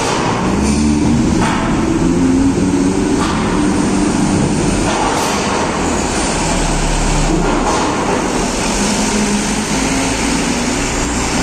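Vehicles driving up the ramp onto a ferry's car deck: engines running close by, including a light truck's diesel engine, over a steady background rumble, with a few short knocks at intervals.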